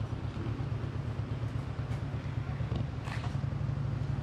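A steady, low, pulsing rumble like an idling engine or motor.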